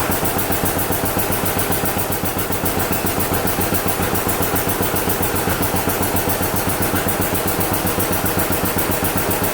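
1948 John Deere B's two-cylinder engine running steadily with a fast, even popping rhythm. The tractor is freshly restored and running for the first time in over 15 years, without its air cleaner fitted. The sound echoes off the walls of a metal building.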